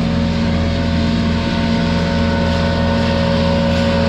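Engine of a piece of work machinery running steadily at constant speed: a loud, even drone with a few held tones and no change in pitch.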